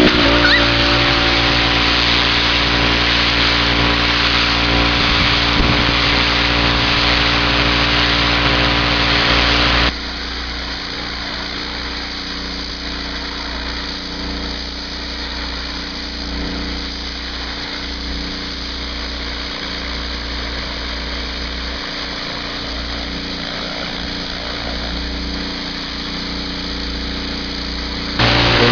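Pressure washer running steadily, its motor drone mixed with the hiss of the high-pressure water spray on house siding. About ten seconds in it drops abruptly to a quieter, more distant take of the same steady running and spraying.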